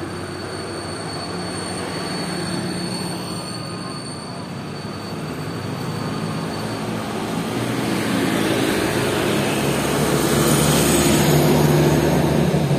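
A large bus approaching and going by on the road, its diesel engine and tyre noise building and loudest near the end. A faint, thin, steady high whine sits under it for the first half.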